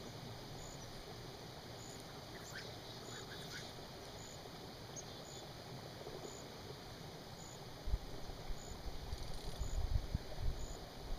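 Quiet outdoor ambience beside a pond: a steady faint hiss with a few faint high chirps a few seconds in. From about eight seconds in, wind buffets the microphone in low gusts.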